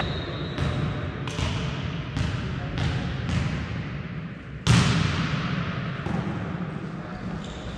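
Volleyball impacts echoing in a large sports hall: a run of lighter thuds spaced about half a second to a second apart, then one loud hit a little after the middle, followed by a couple of fainter ones.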